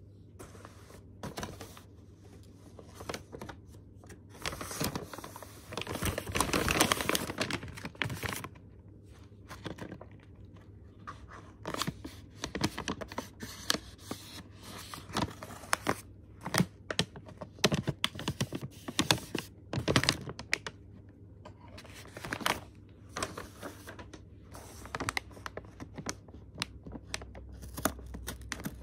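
Paper envelope being handled: rustling and crinkling of the paper with irregular taps and clicks, a longer stretch of rustling a few seconds in.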